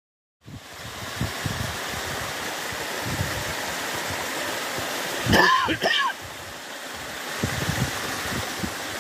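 Small mountain stream rushing and splashing down a narrow rocky channel, a steady hiss with a few low thumps. About five seconds in, a person makes a brief throaty sound twice, like a short cough.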